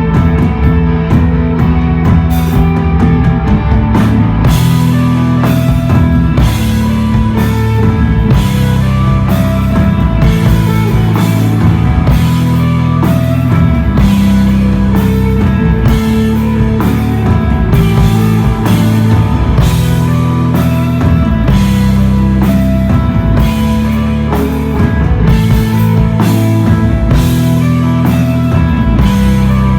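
Live instrumental desert rock from a guitar, bass and drums band: sustained bass notes under electric guitar, with a steady beat on the drum kit that comes in fuller about four seconds in.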